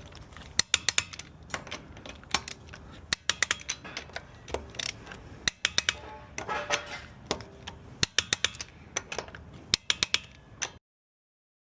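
Irregular sharp metallic clicks and clattering, like hand tools and metal parts being handled, that stop abruptly near the end.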